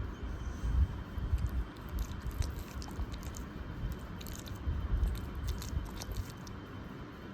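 A pug making irregular wet mouth and nose sounds, scattered clicks over low rumbles, with no steady snoring rhythm.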